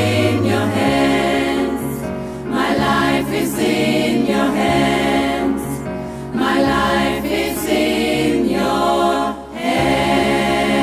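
Gospel choir singing with instrumental backing, in long held phrases that swell and break about every three to four seconds over a steady bass line.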